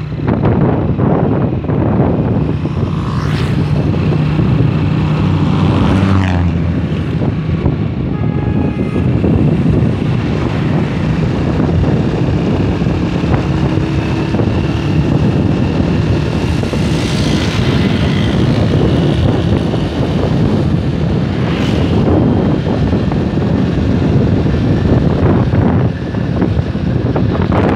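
Honda single-cylinder motorcycle engine running under way, its revs rising and falling during the first several seconds, then mostly covered by steady wind rush on the microphone as the bike rolls on.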